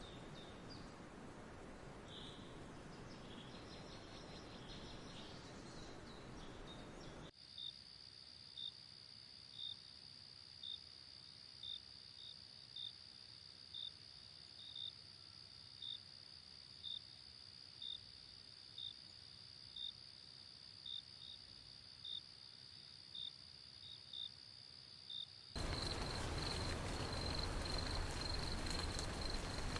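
Insects calling in the open: a steady, high-pitched trill with short chirps repeating about once a second. It sits between edits, with a few seconds of quieter outdoor noise before it and louder hiss near the end.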